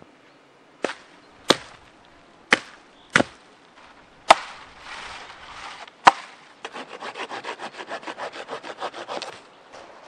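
Dry dead branches snapping with six sharp cracks, then a fast even rasping of wood, about ten strokes a second, for about three seconds.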